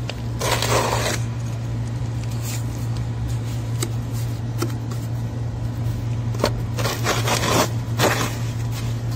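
Short scrapes of wet cement mortar being pressed and smoothed by hand around a PVC drain pipe, in a few brief bursts with small clicks between, over a steady low hum.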